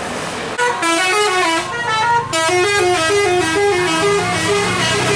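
Tour bus's multi-tone telolet horn playing a quick melody of short, stepped notes, starting about half a second in. The bus's engine drone comes in underneath near the end.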